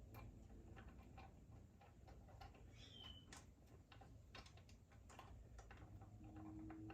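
Near silence broken by faint, irregular clicks and taps, as of hand tools and metal hardware being handled while the boat's ride plate is bolted up.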